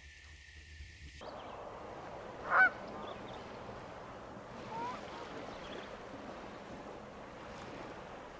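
Canada geese on the water honking: one clear short honk about two and a half seconds in and a fainter call near five seconds, over a faint steady outdoor hiss that begins after a quiet first second.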